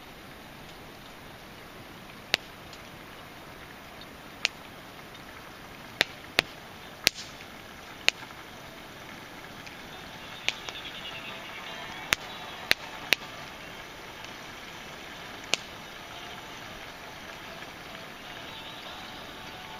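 Wood campfire burning with a steady hiss and about a dozen sharp, irregular pops and crackles from the burning logs.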